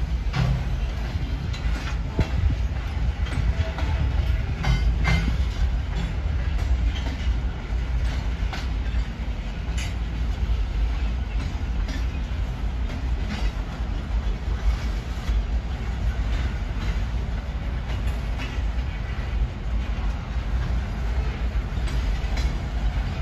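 Freight train boxcars rolling past: a steady low rumble with irregular clicks and clanks from the wheels on the rails.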